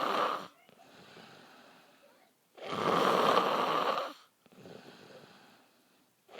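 A man snoring loudly. Harsh, rasping snores come about every three and a half seconds, each lasting around a second and a half, with a softer, rougher breath between them. One snore tails off at the start, one falls in the middle, and the next begins at the very end.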